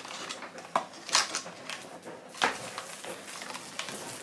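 A handful of sharp plastic clicks and taps from a small clip-on Kindle page-turner being handled, spread over the first three seconds.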